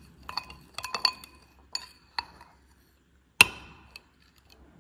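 Metal spoon clinking against a glass mixing bowl while stirring a marinade: a run of light, ringing clinks, with one louder knock about three and a half seconds in.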